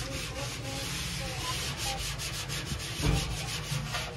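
A scrub sponge wiping canola oil over the inside metal wall of a barrel smoker, a quick run of rubbing strokes. There is a soft bump about three seconds in.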